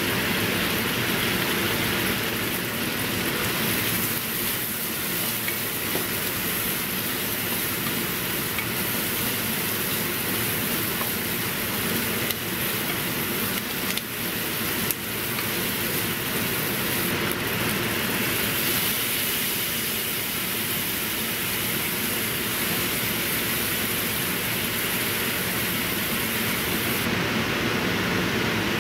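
Pork intestines sizzling steadily in a hot frying pan, with a few light knocks of a spatula stirring them in the middle.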